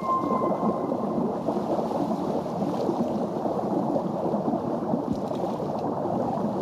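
Underwater ocean ambience: a steady low rushing, gurgling wash of water, with a short high held tone at the very start.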